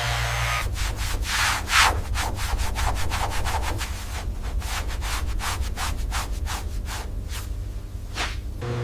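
Rubbing or sanding strokes, about three a second, over a low steady hum.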